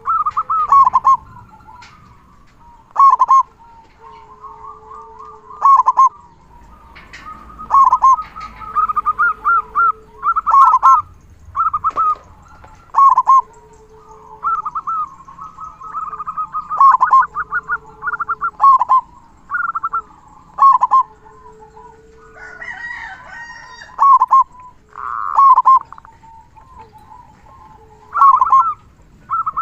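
Zebra dove (perkutut) cooing: quick runs of staccato notes ending in a loud 'kung', repeated every two to three seconds, with a softer low note between phrases.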